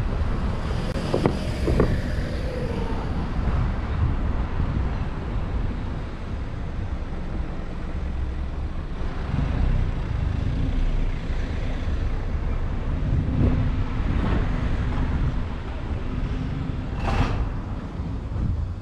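Wind rumbling on the microphone of a camera moving along a street, with steady road noise from the ride and a brief sharp clatter near the end.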